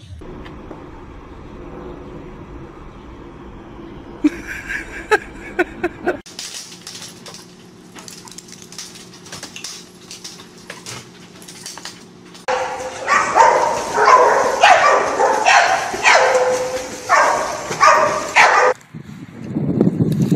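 A dog yelping and whining in a quick run of short, high calls for about six seconds in the second half, after a quieter stretch with a few sharp clicks.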